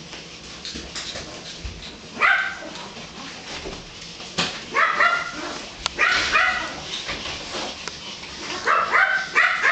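Pomeranian puppies, ten weeks old, yipping and barking at play in short, high-pitched bursts, starting about two seconds in and coming as a quick run of yips near the end. A couple of sharp clicks come in between.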